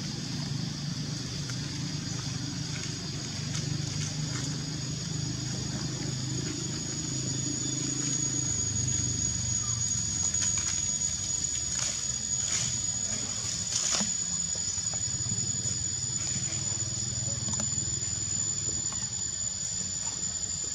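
Steady high-pitched insect chorus with a thin whining tone held on top, over a low steady hum. A few brief sharp clicks or rustles come in the middle.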